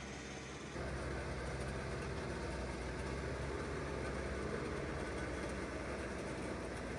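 JCB backhoe loader's diesel engine running steadily as it pushes mud with its front bucket, a steady low hum that gets louder about a second in.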